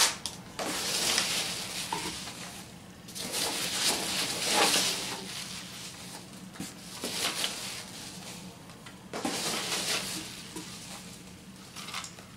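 Foam packing peanuts rustling as hands dig and push through them in a cardboard box, in several separate bouts of a second or two each.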